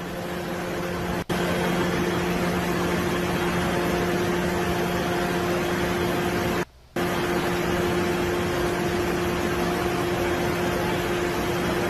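Steady hiss with a constant low hum, like an air conditioner or fan running. The sound drops out for a split second about a second in and for about a third of a second near seven seconds in.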